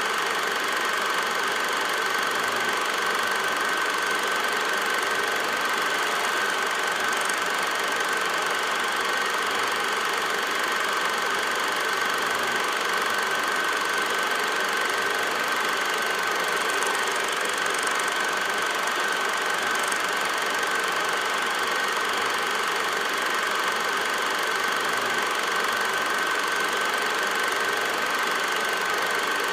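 Steady machine running noise, unchanging throughout, with a constant high-pitched whine over an even hiss.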